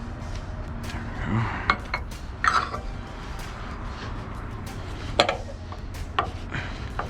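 Metal strap hardware clinking and knocking as wheel straps are handled: a handful of sharp, irregular clanks, the loudest about two and a half and five seconds in, over a steady low rumble.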